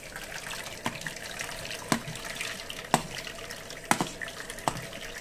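Blended sambhar trickling and dripping through a metal strainer as a ladle stirs it, with a sharp knock of the ladle against the metal about once a second, five in all.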